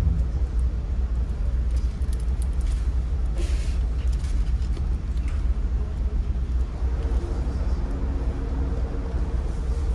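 Steady low rumble of a large car ferry's engines and hull under way. About three to four seconds in, light crackles of a plastic food container lid being opened and handled.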